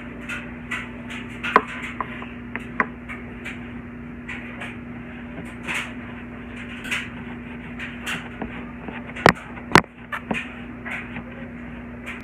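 Scattered light knocks and clicks of objects being handled and set down on a table, over a steady low hum. Two sharper knocks come close together near the end.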